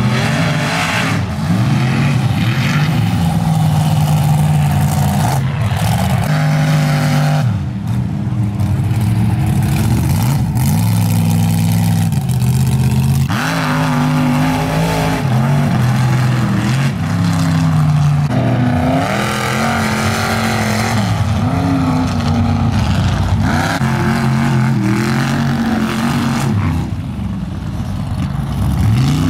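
Mud-bogging trucks' engines revving at high throttle as they churn through a mud pit one after another, the pitch swinging up and down as the throttle is worked.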